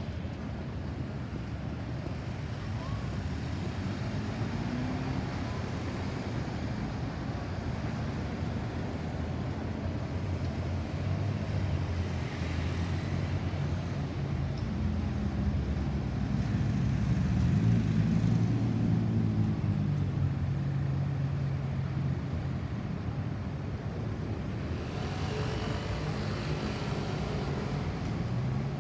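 Road traffic with vehicle engines running; a larger engine grows louder and is loudest about two-thirds of the way through.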